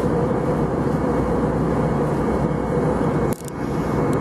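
Steady low noise with a brief drop about three and a half seconds in.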